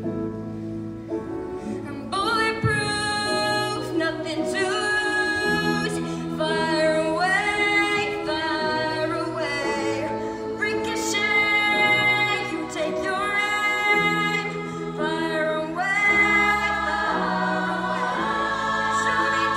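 Show choir singing in harmony over sustained low accompaniment; the voices come in about two seconds in, after a soft instrumental opening.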